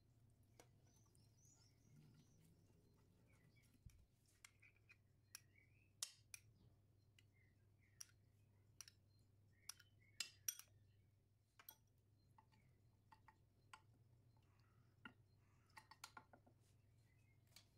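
Quiet kitchen handling: sparse sharp clicks and light clinks of a spoon against a glass bowl and a glass baking dish as tomato sauce is spooned out and spread, with a soft brushing rustle in the first few seconds.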